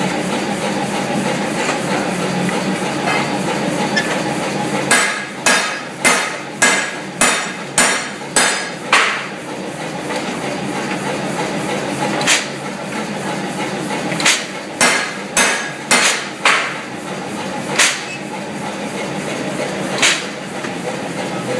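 Fly press striking a chisel tool into a red-hot steel bar: a quick run of about eight sharp metallic clanks, roughly two a second, starting about five seconds in, then a second run of strikes and a few single ones, over a steady workshop rumble.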